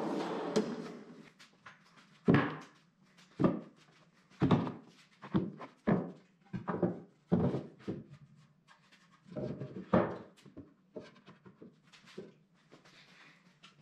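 Pine boards and drawer parts being set down and knocked together on a wooden workbench: a dozen or so separate wooden knocks, irregularly spaced. In the first second a pull-out shelf runs out on metal ball-bearing drawer slides.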